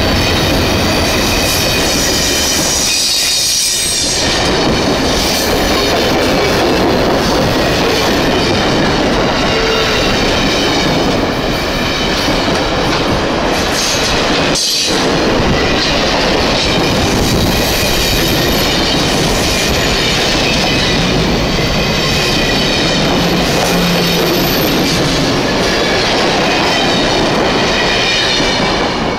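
Amtrak passenger cars rolling past at close range: a steady loud rumble of steel wheels on rail, with clicking over rail joints and a high, thin wheel squeal.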